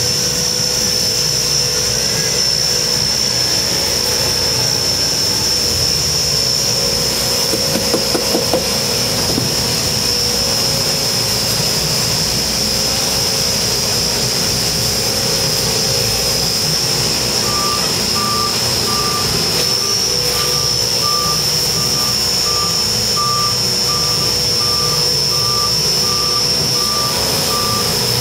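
Concrete mixer truck running steadily with a constant high whine, and a brief clatter about eight seconds in. About two-thirds of the way through, a reversing beeper starts and beeps evenly, a little faster than once a second.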